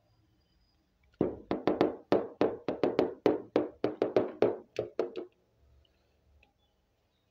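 Plastic toy cow's feet tapped on a hard tabletop as it is walked along, giving a run of about sixteen quick knocks like hoofbeats, starting about a second in and stopping after some four seconds.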